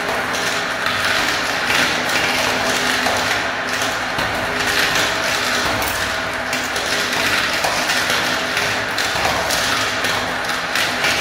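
Many small plastic balls rolling and rattling around clear plastic marble-run funnels and clattering down the tubes, a continuous dense patter of tiny clicks.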